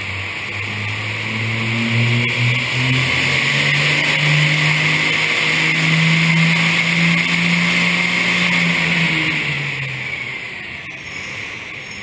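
Second-generation Dodge Ram's Cummins diesel making a full-throttle pull on a chassis dyno. The engine note climbs steadily for about seven seconds, holds near the top, then drops off as the throttle is lifted about ten seconds in, with a strong rushing hiss over it throughout the pull.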